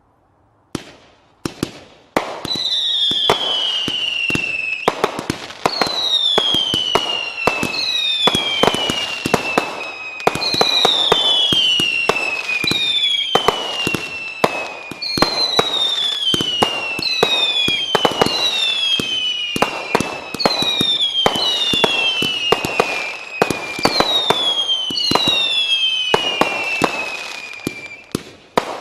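Diablo firework going off: a few lone bangs, then from about two seconds in a dense string of cracks and bangs overlaid with whistles that fall in pitch, a new whistle about every one to two seconds.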